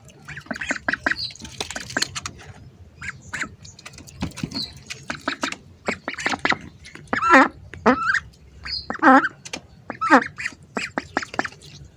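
Ducks quacking: a run of short calls, with several louder drawn-out quacks in the second half.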